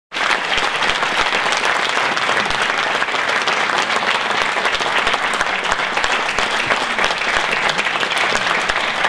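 A packed audience applauding steadily, many hands clapping at once.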